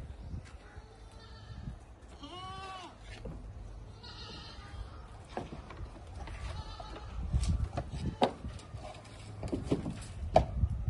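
Barbari goat bleating: one clear, wavering call a couple of seconds in and a second shorter one just after, among scattered knocks and clicks.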